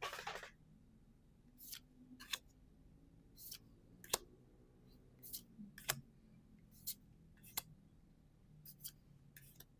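Trading cards being handled and flicked through by hand, a short crisp snap each time a card slides off the stack, about eleven at uneven intervals, the first with a brief papery swish.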